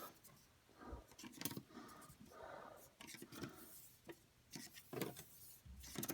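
Faint, irregular clicks and scraping as the grandfather clock's hands and works are handled and set; no chime is ringing yet.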